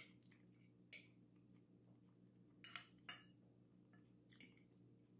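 A metal fork lightly clinking and scraping against a dinner plate: about five short taps spread over near silence.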